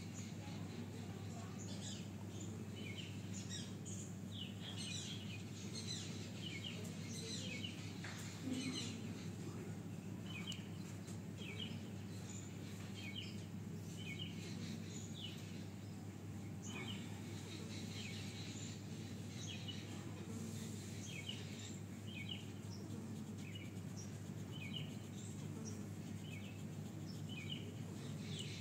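Small birds chirping repeatedly, short high notes about once a second, over a steady low hum.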